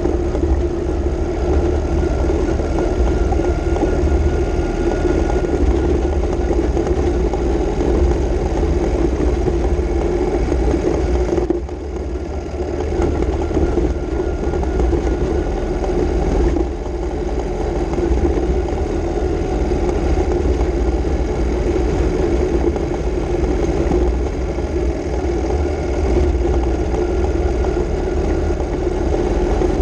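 Ural M67 motorcycle's flat-twin engine running under way on a dirt track, heard from the handlebar-mounted camera with a heavy low rumble. The engine note drops briefly about eleven and a half seconds in and again around sixteen and a half seconds, then picks back up.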